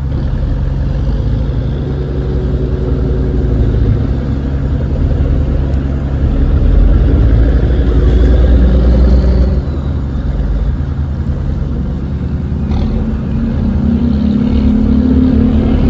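Tugboat's diesel engine running steadily under load while towing a cargo vessel through a river bend, a low rumble that swells louder for a few seconds midway and rises again near the end.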